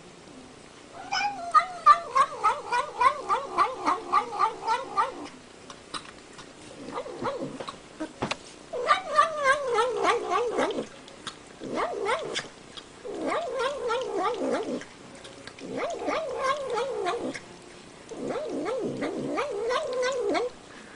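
Domestic cat making long, wavering, warbling yowls in about six bouts, the first about four seconds long with a quick pulsing tremble, the rest shorter and separated by brief pauses.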